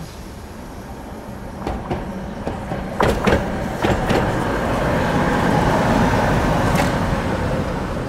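A tram passing by on its rails: a rumble that builds to its loudest about five to seven seconds in and then eases a little, with several sharp clacks from the wheels on the track and a faint steady higher whine through the middle.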